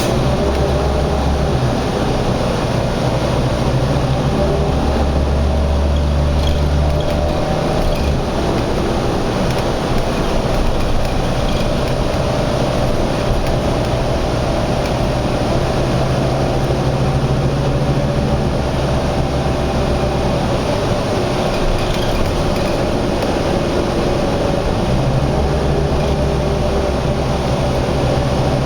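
Heavy engine noise, as from construction machinery or highway traffic, running steadily; a deep drone drops away for a few seconds twice and comes back.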